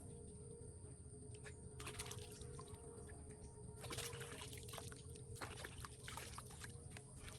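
Water splashing and trickling in a few short bursts, about two seconds in, four seconds in and again between five and a half and six and a half seconds.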